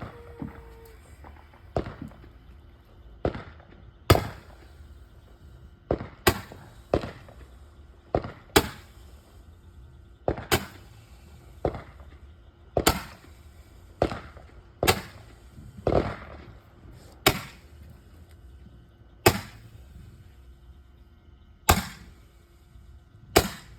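Roman candle firing: about twenty sharp pops, irregularly spaced one to two seconds apart, as it shoots its balls one after another.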